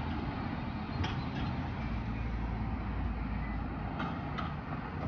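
Road traffic: cars driving past, a steady low rumble of engines and tyres, with a few short clicks.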